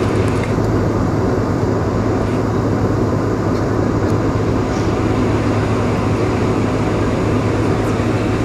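Steady cabin noise inside a taxiing Boeing 747-436: an even rush with a low, constant hum from its Rolls-Royce RB211 engines, and a few faint clicks.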